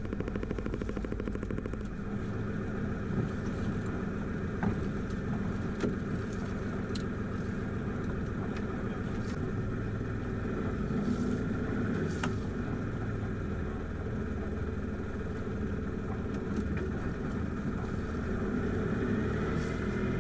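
Sailboat's inboard engine running steadily at low revs while manoeuvring, with a few faint knocks; the pitch rises slightly near the end.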